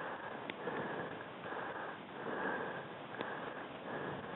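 Heavy, fast breathing close to the microphone, in regular strokes a little under a second apart, with two faint clicks.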